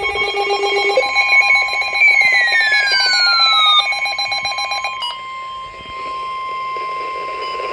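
Emergency Alert System tornado-warning alert tone: a steady electronic tone near 1 kHz, typical of the 1050 Hz weather-radio warning alarm. For the first five seconds it is overlaid by a rapidly pulsing multi-tone electronic alarm with a falling swoop about two seconds in, which cuts off abruptly.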